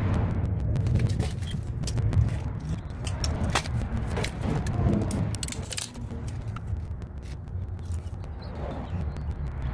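Light clicks and rattles of plumbing fittings and a no-hub coupling being handled, over a steady low rumble.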